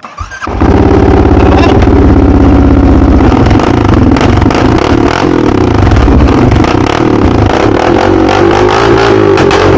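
CFMoto CForce 600 ATV's single-cylinder engine starting with a short crank, catching about half a second in, then running loud and steady through an aftermarket RJWC exhaust pipe. This is the first start after its mouse-chewed wiring was spliced.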